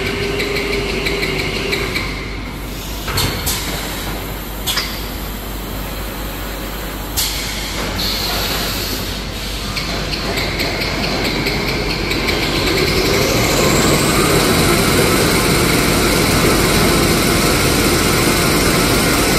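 Glue-lamination toilet paper and kitchen towel rewinding machine running with a steady mechanical noise and a few sharp clicks in the first half. About two-thirds of the way through a rising whine comes in and the running grows louder.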